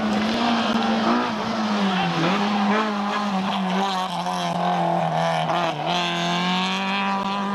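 Rally car engine running hard at high revs through a bend, the pitch sagging and recovering twice as the driver lifts or changes gear.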